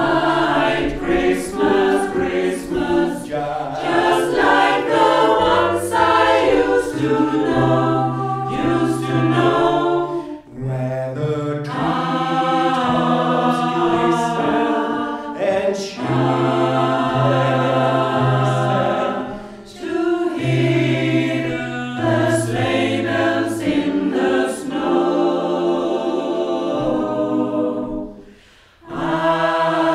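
Small mixed choir of women's and men's voices singing a Swedish Advent song in parts. The singing breaks briefly between phrases, with a longer pause near the end.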